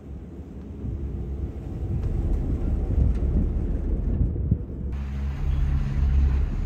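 Wind buffeting the microphone with a rumble of skis running over snow on a fast descent, growing louder. The sound changes abruptly about five seconds in.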